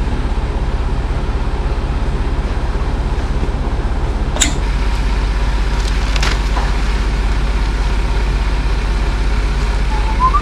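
Truck diesel engine running steadily with a low, fast, even throb that changes pitch about four and a half seconds in. A few sharp clicks sound over it.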